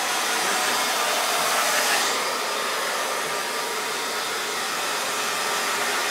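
Handheld hair dryer blowing steadily, its rushing air easing off slightly about two seconds in.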